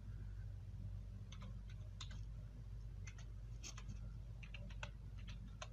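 Computer keyboard keys clicking in short, irregular keystrokes as a word is typed. A steady low hum runs underneath.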